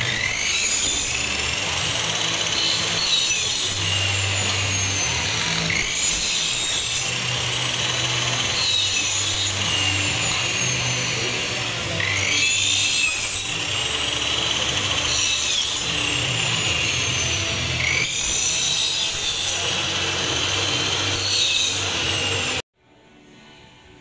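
Power saw cutting aluminium frame profiles, with a rising whine on each cut every few seconds over the motor's steady run. It stops abruptly near the end.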